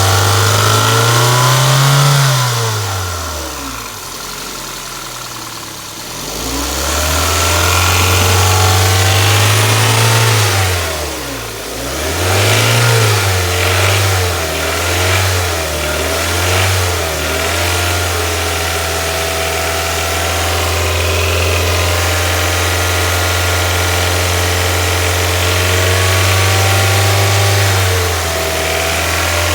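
Hyundai Elantra 1.6 G4FC four-cylinder engine, revved up and down several times with a few quick blips, then held steady for about ten seconds. It has a knock that the owner cannot place, wondering whether it is the timing chain, the lifters, the bearings or scoring in the cylinders.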